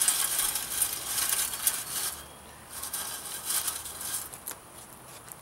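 Small pieces of kindling dropped into a homemade sheet-metal pipe rocket stove: a dense run of light clicks and rattles for about two seconds, then a few scattered clicks.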